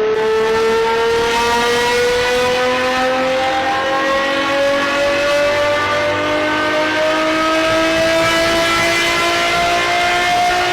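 Naturally aspirated V12 car engine under hard acceleration, its pitch climbing slowly and steadily in one long pull through a single gear.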